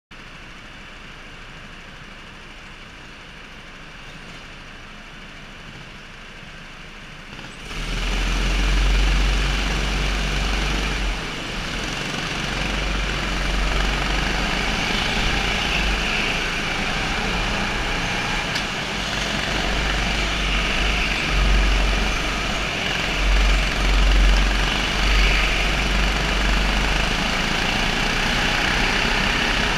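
Go-kart engine running, faint at first and then suddenly much louder about eight seconds in, with a heavy low rumble that carries on steadily.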